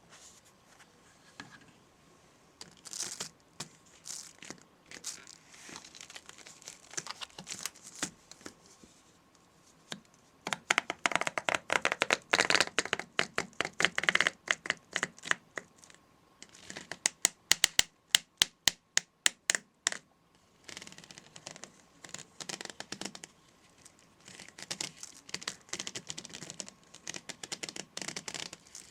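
Hands handling objects up close: irregular crinkling and scratching, loudest about a third of the way in, and a quick run of sharp, evenly spaced taps just past the middle.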